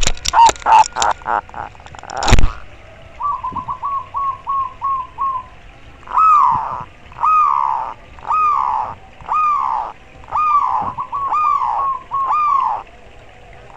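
Zebra dove (perkutut) beating its wings close by for the first couple of seconds, ending in one loud knock. It then calls: a quick run of short coos, followed by a string of longer, falling calls about one a second, the perkutut's 'koar' call.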